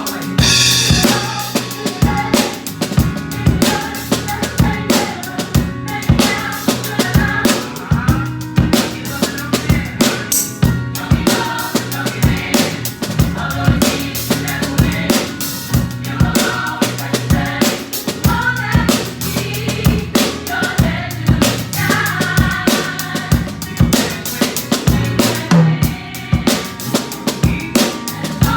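Drum kit played in a steady groove (kick drum, snare with rimshots and cymbals) along with a song, with a vocal group singing over the music.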